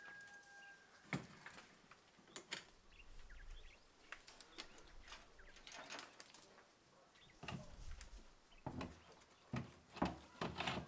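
Scattered wooden knocks and clicks from a wooden hutch being handled, its mesh lid shut about a second in, with more knocks near the end. A brief high peep at the start and a few faint bird chirps.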